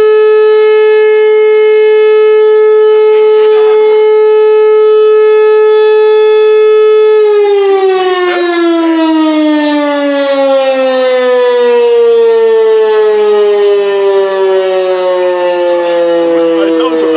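Rotary siren sounding a fire alarm: one steady loud tone that, about seven seconds in, is switched off and winds down, its pitch falling slowly.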